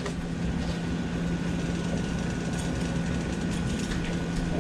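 Steady machine hum: a low drone with a fainter, higher steady tone over a constant hiss.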